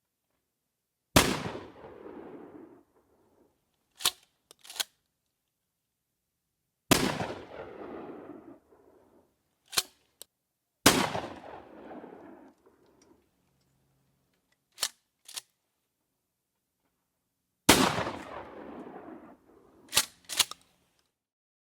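Four single gunshots, each a sharp crack followed by a reverberant tail that dies away over about two seconds. Between the shots come pairs of short, sharp clicks.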